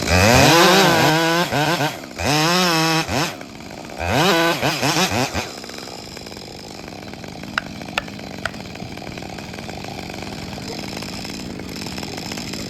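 Husqvarna 562 two-stroke chainsaw revved hard three times in a row, the engine note rising and falling each time, then running on more quietly and steadily, with a couple of sharp clicks near the middle.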